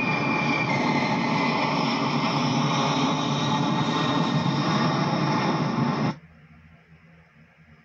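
Jet noise of a four-engine military transport flying overhead, a steady rushing roar with a high engine whine, played back through computer speakers. It cuts off abruptly about six seconds in, leaving only a faint room hum.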